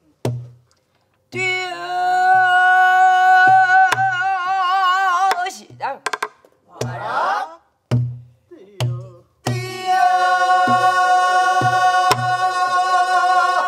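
Pansori singing: a woman holds two long notes with wide vibrato, with a short vocal glide between them. She is accompanied by a buk barrel drum: low thumps from the palm on the drumhead, and sharp clacks from a wooden stick on the drum's frame.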